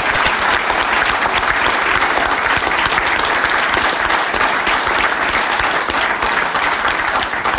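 A crowd applauding steadily: dense, even clapping with no break.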